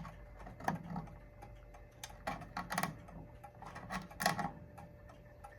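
Mauthe mantel clock's movement ticking steadily, with a few louder knocks mixed in between the ticks.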